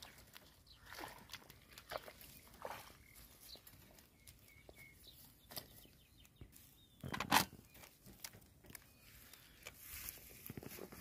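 Woven bamboo fish trap being handled and moved about on grass and mud, with scattered rustles, footsteps and light knocks, and one louder knock about seven seconds in.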